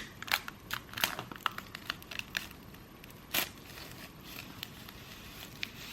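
Packaging being crinkled and torn open as an Apple Pencil box is unwrapped: irregular crackling rustles with a sharper tear about three and a half seconds in.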